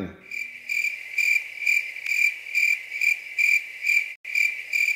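Cricket chirping, about two chirps a second, the stock 'awkward silence' gag sound laid over a pause; it drops out for an instant about four seconds in.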